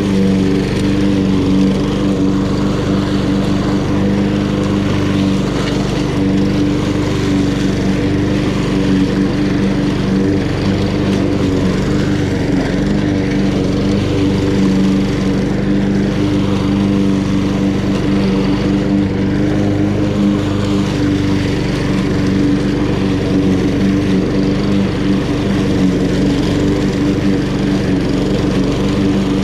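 Honda GCV170 single-cylinder engine on a Honda HRN216 walk-behind lawn mower running steadily at full speed, its pitch and loudness holding even throughout.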